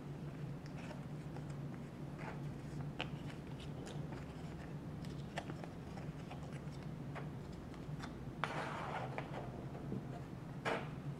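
Paper Troxes pieces being creased and folded by hand: scattered soft clicks and crinkles, with a longer rustle about eight and a half seconds in and a sharp crackle near the end.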